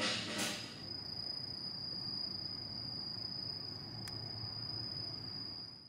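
Background music stops about a second in. A steady high-pitched insect trill takes over, like a cricket's, over a low hum, and fades out at the very end.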